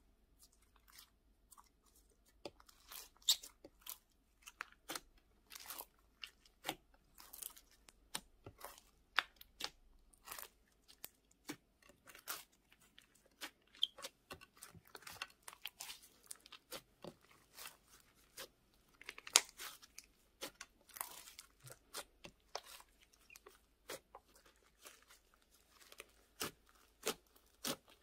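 Hands kneading and squeezing a large mass of glossy, glitter-filled slime, giving irregular sticky clicks and wet pops, with a few louder snaps.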